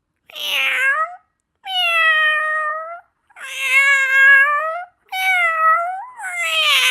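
Domestic cat meowing: about five drawn-out meows one after another, with short gaps between them.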